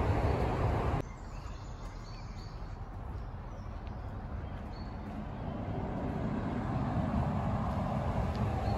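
Outdoor ambience: a louder low rush that cuts off suddenly about a second in, then a steady low rumble that slowly grows, with a few faint short high chirps.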